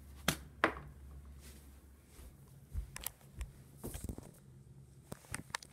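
Handling noise from a phone held in one hand: two sharp knocks in the first second, then scattered soft bumps and rubbing.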